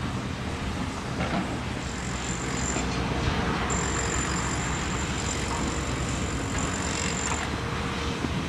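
Heavy diesel earthmoving machinery, tracked excavators and a tipper truck, running in a steady low rumble. A thin high whine comes in twice, and there are a couple of faint knocks.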